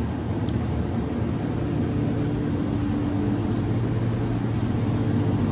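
Steady low machine hum with several steady tones in it, unchanging throughout.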